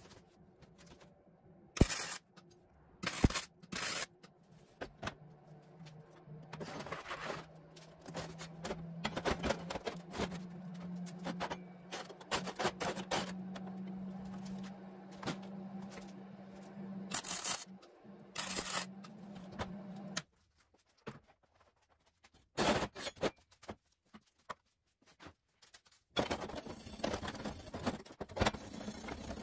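Welding on steel frame tubing: a few short arc bursts early on, then an arc running steadily for about fifteen seconds, crackling over a low hum that rises slightly in pitch, which cuts off abruptly. Near the end a wire brush scrubs the fresh weld.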